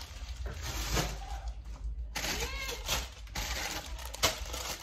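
Plastic vegetable packets crinkling and rustling as they are handled, with sharp clicks and knocks about once a second, the loudest near the end.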